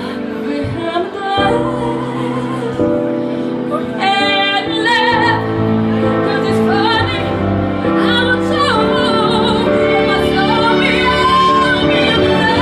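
A woman singing live into a microphone over backing music, holding long notes with a wide vibrato, most clearly near the end.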